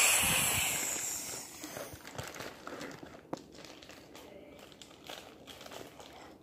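Crinkling and rustling, loud at the start and fading over about two seconds, then scattered light clicks and softer rustles.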